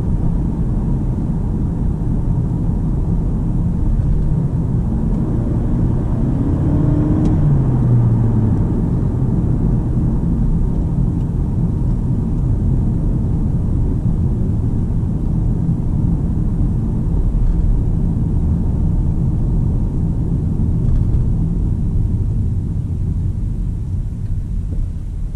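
Cabin sound of a 2019 Toyota Camry 2.5 hybrid (2.5-litre four-cylinder petrol with electric drive) on the move: a steady low road and drivetrain rumble. About six to eight seconds in, a brief hum rises and then falls in pitch.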